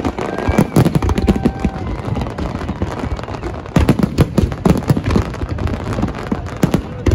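Aerial fireworks display: a dense, unbroken barrage of shell bursts and crackling stars, with a heavier run of loud bangs from about halfway through.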